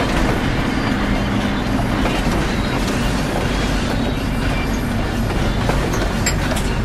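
Steady road noise inside a moving car: engine and tyres rumbling over a slushy, snow-covered road.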